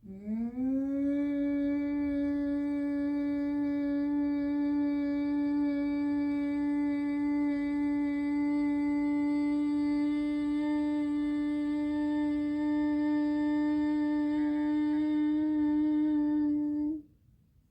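A woman's long, steady hum on one note, the bee-like exhale of bhramari pranayama. The pitch rises briefly as it begins, then holds level for about seventeen seconds before cutting off abruptly.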